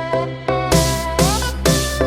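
Electronic dance music with synth notes and a bass line, and a full beat with regular hits coming in under a second in.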